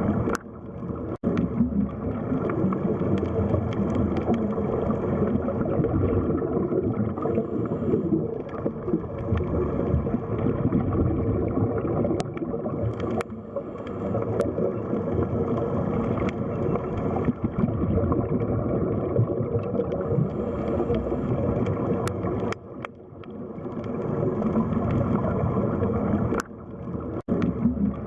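Underwater sea ambience: a dense, steady wash of deep water noise. There are a few sharp clicks and several brief dropouts.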